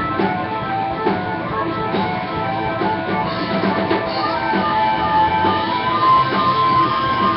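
Live rock band playing: electric guitar, bass guitar and drum kit, with an amplified harmonica blown into a cupped microphone. About halfway through, a long held harmonica note bends slightly upward over the band.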